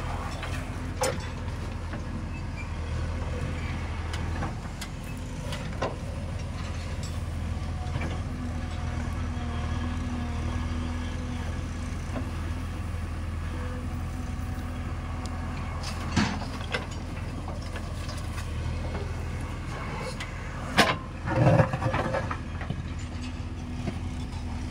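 Backhoe loader's diesel engine running steadily as it digs and loads soil, with occasional knocks and clanks from the bucket and soil. The loudest is a short burst of clatter about three-quarters of the way through.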